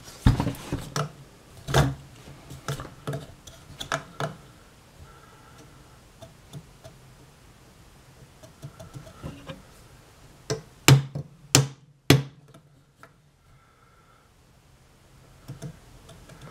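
Metal clattering and knocking as a car's electric AC condenser fan and its steel mounting bracket are handled and bolted together with hand tools. A run of clicks and knocks comes in the first few seconds, and four loud, sharp metal strikes come close together about eleven seconds in.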